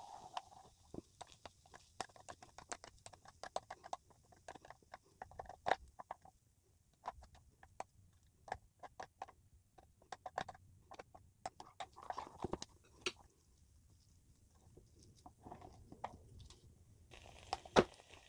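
Close-miked chewing of crispy fried food pressed in a waffle iron: a dense run of sharp crunching clicks with short pauses, and one louder click near the end.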